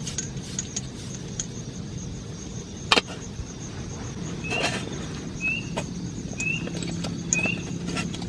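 Raindrops tapping on tent fabric as irregular ticks over a steady patter, with one sharper tap about three seconds in. From about halfway through, a short high rising chirp repeats about once a second.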